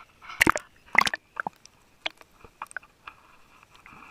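Small waves slapping and splashing against a camera at the water's surface: a string of sharp wet knocks, the two loudest within the first second, then fainter ones as the camera goes under. A faint steady high hum comes in underwater near the end.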